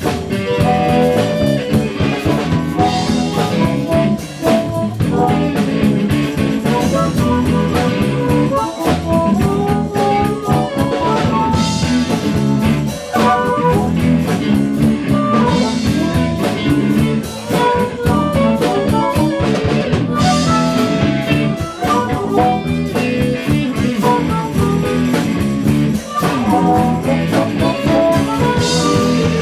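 Live blues band playing an instrumental passage with no singing: electric guitar and drum kit, with a harmonica played into the vocal microphone.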